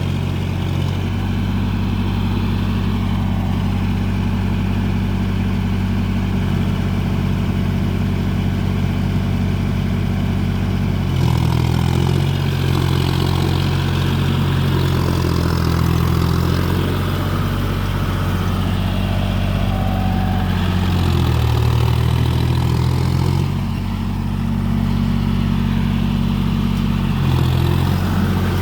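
John Deere four-wheel-drive tractor's diesel engine running steadily while ploughing in deep mud, its pitch shifting several times.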